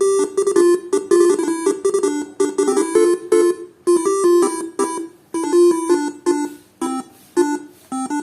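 Faniatech R3 basuri telolet horn module playing its preset horn tunes: quick runs of short pitched notes, several tunes in a row with brief breaks between them.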